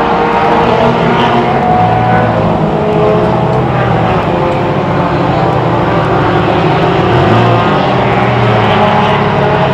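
Four-cylinder ministock race cars running laps together on the oval, several engines sounding at once. One engine's pitch rises and falls about seven seconds in.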